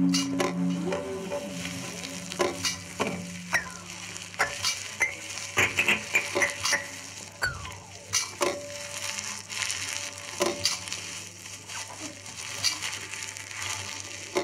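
Amplified crackling and clicking from objects handled on a table of live electronics: a sizzling texture dotted with sharp clicks and a few short falling whistling tones, over a steady low hum. A held low drone fades out in the first few seconds.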